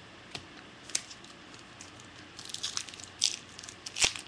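Trading cards being handled with a crinkling plastic pack wrapper: a few faint taps, then crackly crinkling from about halfway and a sharp click near the end.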